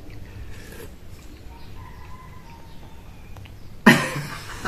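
A quiet stretch with a faint thin whine in the middle, then people suddenly burst out laughing near the end.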